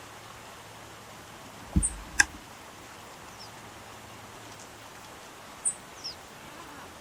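Outdoor ambience with a few short, very high chirps, a low thump about two seconds in, and a sharp click just after it, which is the loudest sound. The egrets' harsh croaking calls are not heard here.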